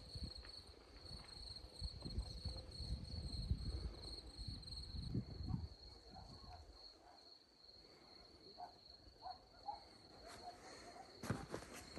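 A cricket trilling steadily at a high pitch. Low rumbling noise runs under it for about the first five seconds, and a few faint short chirps follow later.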